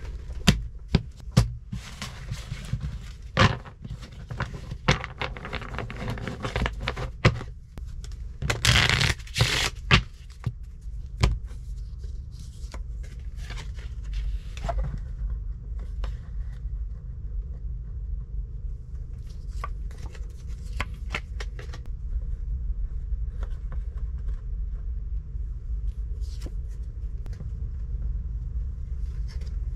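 Playing cards being gathered up and shuffled after a lost hand of solitaire: a run of sharp card snaps and slaps through the first ten seconds or so, with a dense shuffle about nine seconds in. After that only a few scattered clicks over a low steady rumble.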